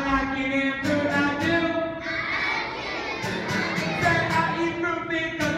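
A group of young children singing together to a strummed acoustic guitar, in a large hall.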